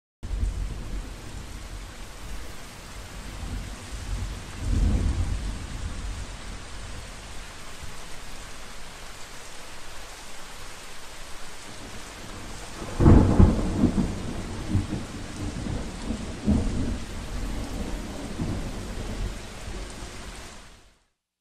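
Steady rain with rolls of thunder: a low rumble about five seconds in, then a louder thunderclap about thirteen seconds in that rumbles on for several seconds, before the rain fades out near the end.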